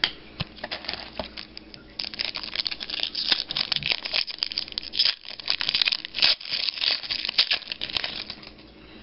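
Foil wrapper of a 2012-13 Panini Elite basketball card pack being torn open and crinkled by hand: a run of irregular crackles, sparse at first, much denser from about two seconds in, stopping just before the end.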